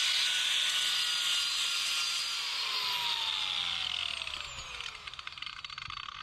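Handheld angle grinder running free with a steady whine, then switched off about two seconds in and spinning down, its whine falling in pitch and fading until it stops.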